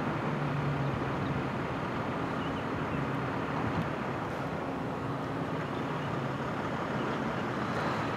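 Steady outdoor background noise with a low engine-like hum that comes and goes.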